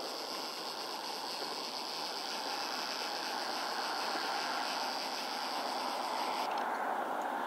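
Steady distant engine noise, slowly growing louder, with a high steady hiss over it that cuts off about six and a half seconds in.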